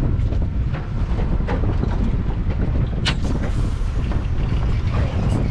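Wind buffeting the microphone aboard a panga, a steady loud rumble, with scattered knocks and slaps and a sharp one about three seconds in.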